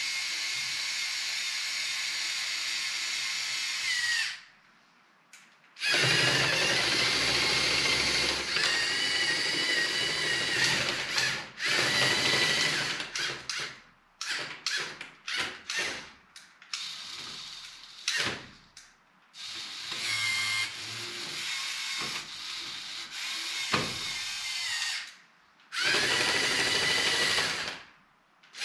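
Small electric motors of a LEGO Technic RC straddle carrier whining through their gears as it drives on its tracks and works its container spreader. The whine runs, stops after about four seconds, returns for a long stretch, then comes in many short starts and stops, with a last long run near the end.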